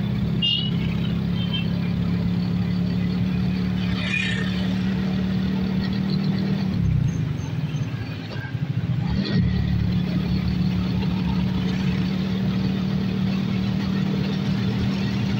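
Steady engine hum of the vehicle carrying the camera, heard while riding along a road. The engine note dips about seven seconds in and comes back up about two seconds later, as when easing off and picking up speed again.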